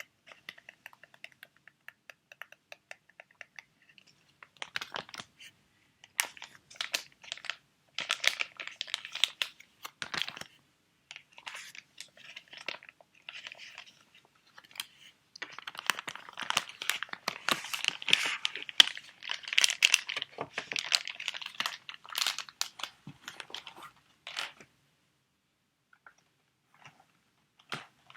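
Crinkling and handling of sheet-mask packets, in irregular spells of crackling with short pauses, busiest past the middle and dying away in the last few seconds.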